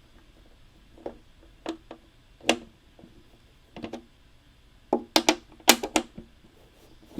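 Hard plastic model kit parts clicking and tapping as they are handled: a few single sharp clicks, then quick clusters of clicks in the second half.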